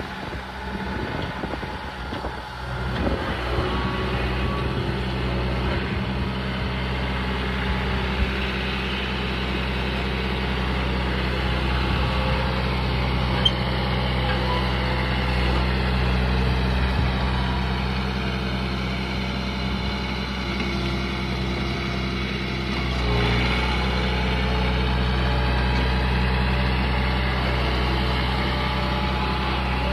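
John Deere 4044M compact tractor's diesel engine running steadily as the tractor works its front loader, swelling slightly about three quarters of the way through.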